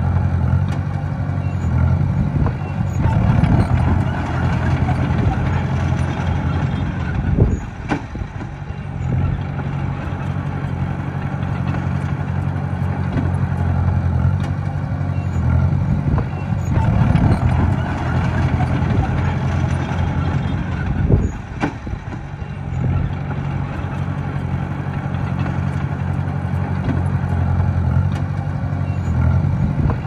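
Diesel engine of a small Komatsu crawler bulldozer running steadily under work. About a quarter of the way in and again about two-thirds through, a sharp knock is followed by a brief drop in engine sound before it picks back up.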